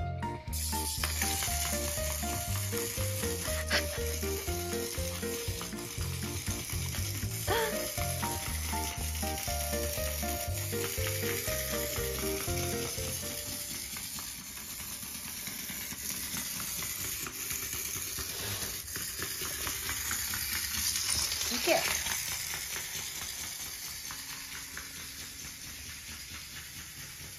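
Background music, a stepped melody over a pulsing bass, for about the first half, over a steady crackling hiss that goes on after the music stops.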